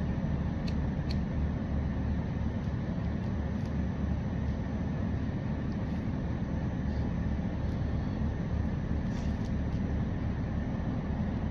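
A steady low rumble and hum that holds at one level throughout, with a couple of faint clicks about a second in.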